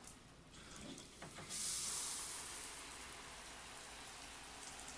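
Shower water turned on about a second and a half in: a sudden steady hiss of spray that is loudest for about a second, then settles to a steady lower level.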